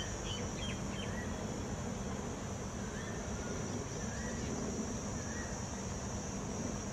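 Open-air ambience with a steady high-pitched insect drone, short bird chirps every second or so, and a low background rumble.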